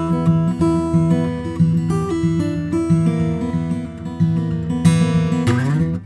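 Martin custom 000 12-fret acoustic guitar, solid spruce top with quilted maple back, being played: plucked notes and chords ring over sustained bass notes. There is a short upward slide near the end.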